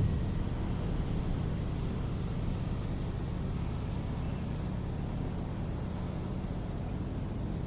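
Steady low rumble of road traffic in a city. A louder passing vehicle dies away right at the start.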